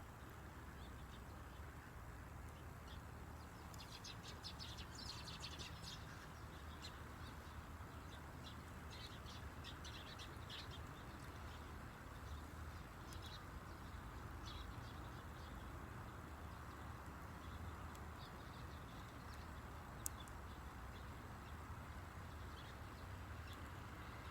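Faint wood campfire crackling, with clusters of quick crackles and a single sharp pop about twenty seconds in.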